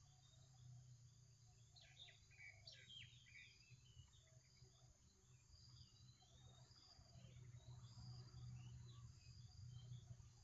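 Near silence: a faint low hum, with faint bird chirps about two seconds in and faint insect chirping repeating throughout.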